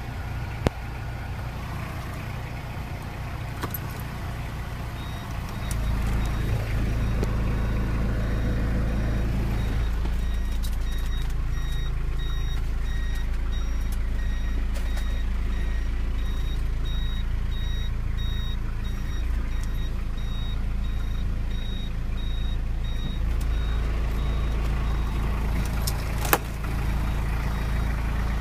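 Car reversing with its engine running and a high-pitched reversing warning beeping over and over. The engine gets louder about five seconds in, and the beeping stops shortly before the end, just after a sharp click.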